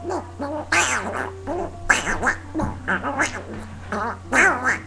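A person imitating a duck with their voice: a quick run of short, nasal quacking calls that bend up and down in pitch, about two or three a second.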